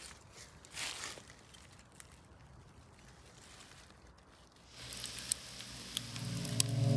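Faint rustling noise with a brief swell about a second in. From about five seconds, a music track on the Bluetooth speakers begins to fade in, with a few sharp clicks and low tones swelling toward the end.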